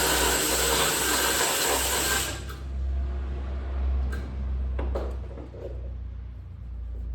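Power drill with a socket running for about two and a half seconds, spinning off the last 13 mm nut on the strut top mount, then stopping. A few light clicks follow.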